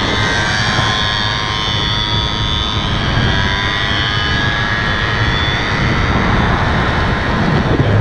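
Several 50cc two-stroke scooter engines buzzing steadily at speed, their high pitches wavering slightly against each other.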